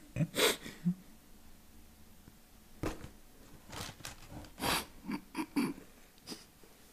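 Stifled laughter through the nose: a handful of short, breathy snorts and sniffs at irregular intervals.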